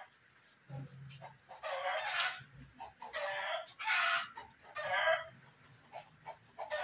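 Chickens calling: a run of about four loud squawking calls in quick succession through the middle, with short quiet gaps between them.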